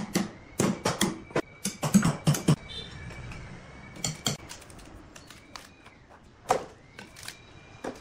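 Sharp knocks of a metal tool striking the log's bark and wood. They come in a quick irregular run for the first two and a half seconds, then only a few scattered single knocks.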